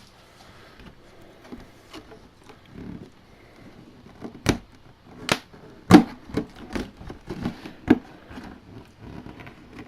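Handling and unpacking a boxed mini football helmet by hand: soft rustling at first, then a run of sharp knocks and clicks in the second half, four of them louder than the rest.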